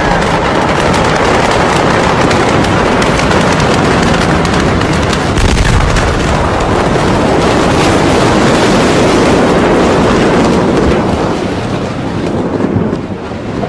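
Massive ammonium nitrate explosion overwhelming a phone microphone. A loud crackling, popping din is followed about five and a half seconds in by a deep blast. A long, heavy roar of the shockwave follows and eases off near the end.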